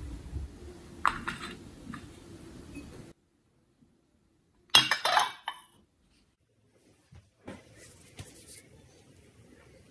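Dishes and cutlery clinking in a few short bursts, the loudest about five seconds in.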